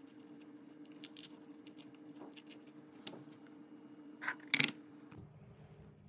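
Light clicks and taps of a knife and apple slices being handled on a plastic cutting board, with a louder double knock about four and a half seconds in. A steady low hum runs underneath and cuts off just after five seconds.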